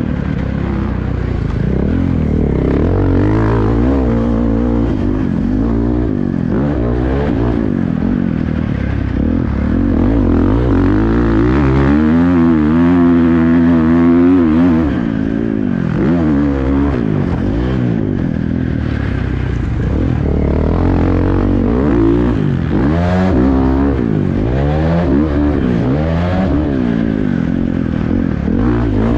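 2023 Husqvarna FC450 motocross bike's 450 cc single-cylinder four-stroke engine under hard riding. The engine pitch rises and falls over and over as the rider works the throttle and gears around the track.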